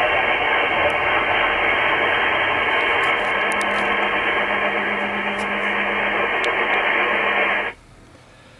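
Aquário RP-70 CB radio's speaker hissing with steady AM receiver static after the other station has unkeyed, with a faint low hum joining about three seconds in. The hiss cuts off suddenly near the end as the volume is turned down to off.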